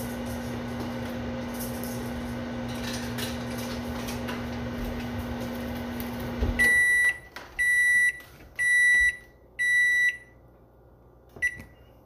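Microwave oven running with a steady hum, then shutting off about six and a half seconds in with a low thud. Four high beeps follow, about a second apart, signalling that the cooking cycle has finished.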